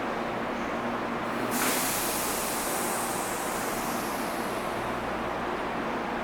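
Tobu 8000 series electric train at the platform, with a sudden hiss of compressed air about a second and a half in that fades slowly over several seconds, over steady train and station noise.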